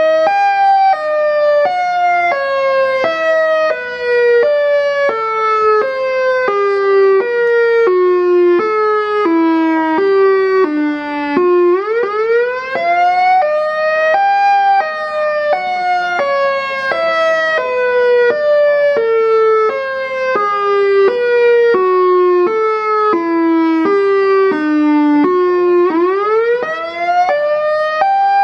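EOWS 612 electronic siren speaker array sounding a two-note warning tone. The tone steps down in pitch in short pulses, about two a second, for roughly twelve seconds, then sweeps quickly back up and starts over, twice.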